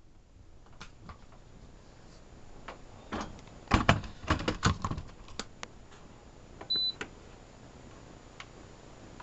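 Hard knocks and clatter as the Cuisinart SBC-1000C's glass jar is handled and set onto its base, then a single short electronic beep from the blender's controls and a few light clicks.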